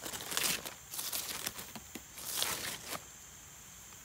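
Dry leaf litter and dead stems rustling and crackling in three short bursts as they are disturbed by hand.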